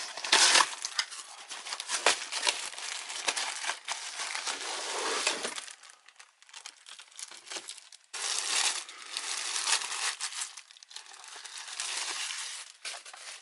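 Packaging being handled and opened: plastic or paper wrapping crinkling and tearing, with small clicks, in several stretches of a few seconds each with short quieter gaps.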